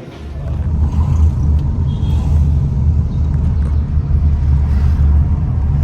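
Road vehicle's low, steady engine and road rumble.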